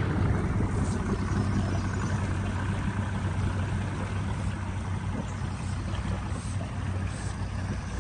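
A motorboat engine running steadily at low speed, its hum slowly fading as it moves off.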